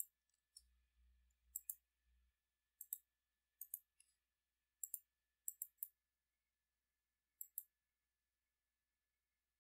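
Computer mouse buttons clicking, about a dozen sharp clicks, mostly in quick pairs like double-clicks, spread over the first eight seconds, with near silence between them.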